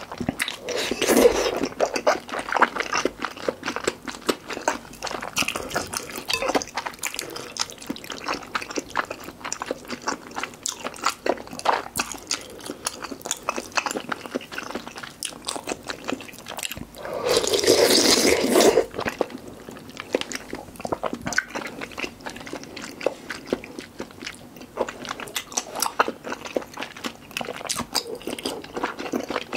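Close-miked eating of malatang soup: wet chewing and mouth clicks throughout, with a slurp from the ladle about a second in and a longer, louder slurp a little past the middle.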